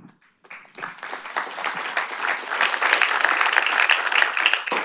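Audience applauding. The clapping begins about half a second in, swells to a dense patter, and tails off near the end.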